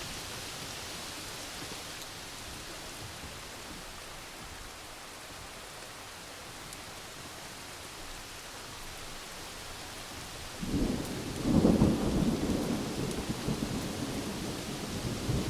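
Steady rain hiss, then thunder breaks in sharply about two-thirds of the way through and rolls on with a loud peak soon after, rumbling to the end under the rain.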